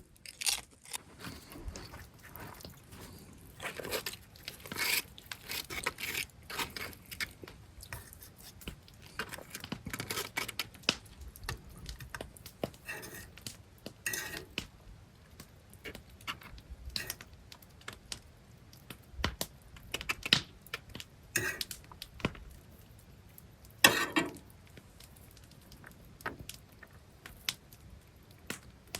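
Scattered clicks, knocks and clatter of utensils and cookware as food is handled and put together, with occasional crunching; one sharper clatter about 24 seconds in.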